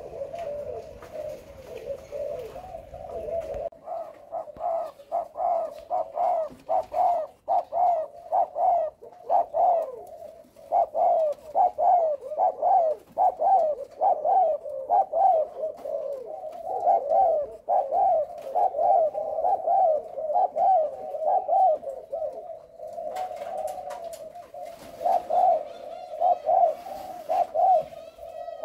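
Caged spotted doves cooing: a long run of short, quick coo notes, about two a second.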